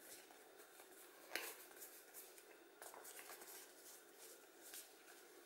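Near silence, with a few faint soft taps and slides of large board-game cards being fanned out in the hands; the clearest tap comes about a second and a half in.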